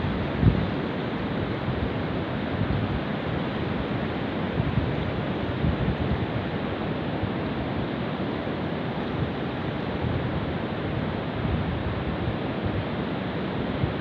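Steady rushing of flowing water, with low wind buffeting on the microphone.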